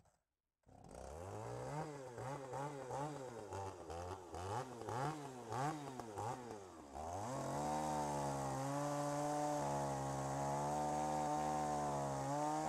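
Chainsaw revving up and down repeatedly, then held steady at full throttle as it cuts into a log.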